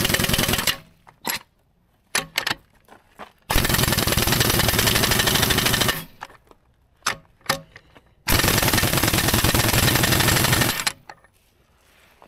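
Harbor Freight pneumatic impact wrench hammering on a bulldozer track-roller mounting bolt, in three bursts: one that stops under a second in, then two of about two and a half seconds each, with short clanks of the tool and socket between. The bolts are already tight, so the hammering turns each one only a little.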